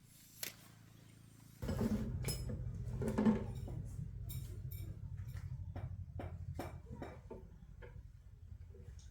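A low steady hum starts about a second and a half in. Over it come a string of short light clinks and knocks, several a second at first and then spaced out.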